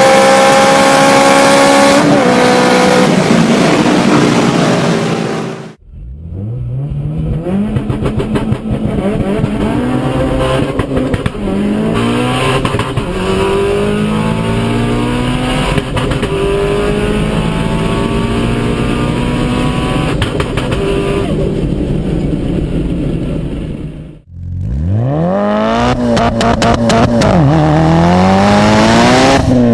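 High-revving car engines in three separate recordings: a steady high-rpm note, then an engine accelerating with repeated rising pitch sweeps that drop back at each gear change, then another engine revving up hard again and again.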